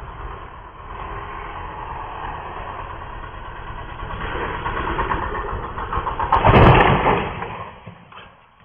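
Motorcycle engine running and rising in level as the bike rides close past, with a loud noisy burst about six and a half seconds in, then fading out near the end.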